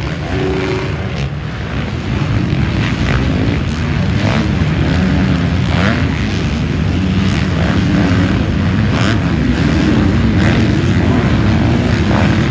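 Engines of a pack of motocross bikes racing over jumps: a loud din of many engines revving up and down with quick throttle changes, growing louder about two seconds in.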